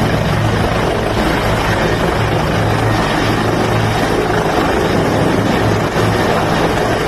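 Helicopter running, a loud steady rotor and engine noise with a low, pulsing hum.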